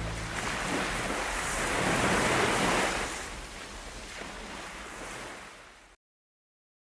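A rushing noise, like surf or wind, that swells for the first few seconds, then fades and cuts off to silence about six seconds in; the last low notes of the closing song die away at the very start.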